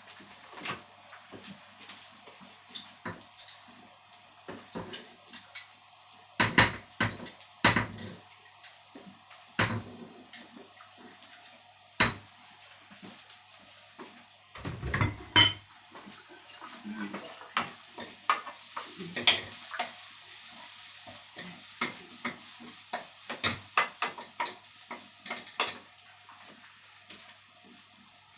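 Cooking utensils clinking, knocking and stirring against a pan and dishes, with a frying sizzle that rises a little past halfway and fades near the end.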